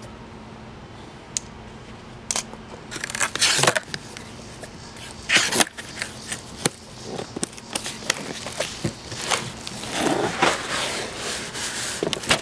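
Cardboard box flaps and cardboard packing pieces being handled and pulled open: scattered scrapes, rustles and light knocks, the loudest about five seconds in.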